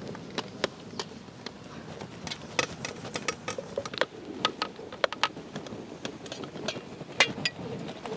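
Fine white powder poured from steel tumblers onto a large metal plate: a soft hiss of falling powder with scattered light clinks and taps of the steel cups, some ringing briefly.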